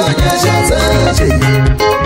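Upbeat dance music with a steady beat.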